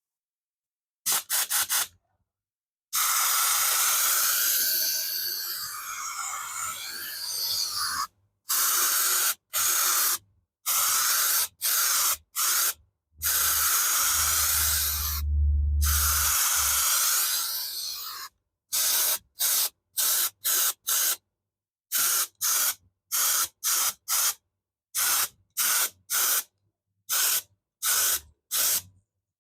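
Paint spray gun spraying a coat of paint: long hissing passes early on and again midway, then many short on-off bursts of hiss, about one and a half a second, with a low hum under the hiss in the middle.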